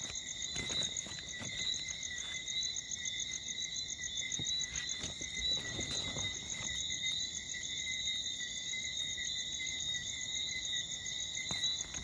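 Steady night chorus of high-pitched trilling calls, several pitches held at once without a break, with a few faint rustles and knocks now and then.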